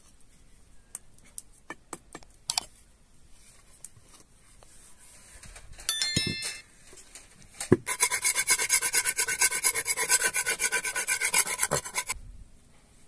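A metal scraper rasping rapidly back and forth over a wooden board, about five strokes a second for some four seconds. Before it, a single loud knock as the wooden board is set down.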